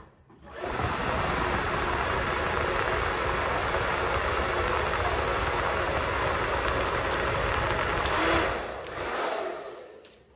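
Handheld blow dryer running with a steady, even rush of air and motor noise, switched on about half a second in; it swells briefly about eight seconds in, then winds down and fades out near the end.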